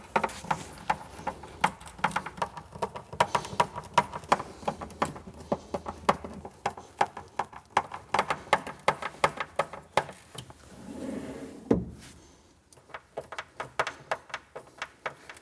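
Screws being driven into the chipboard floor of a kitchen base cabinet to fix a runner carriage down: a fast, irregular run of sharp clicks and ticks, with a brief softer hum about eleven seconds in.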